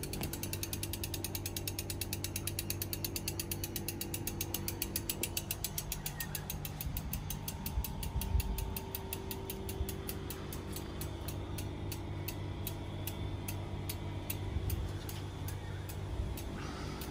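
Mountain bike's rear freehub ticking as the wheel coasts, the clicks slowly spacing out as it loses speed.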